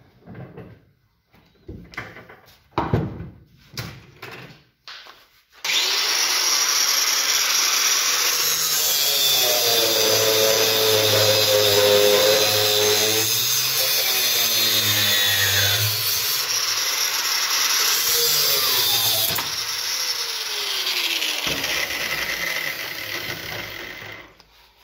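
A few knocks, then an angle grinder with a cut-off disc starts suddenly about five seconds in and cuts through metal for most of the rest. Its motor pitch wavers and dips under load, and it fades out near the end.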